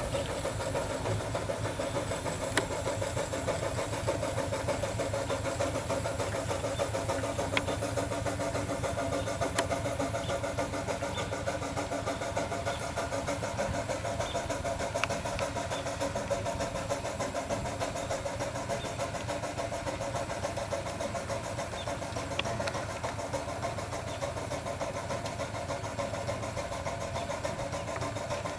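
5/8-scale Wood Brothers steam traction engine running steadily while under way.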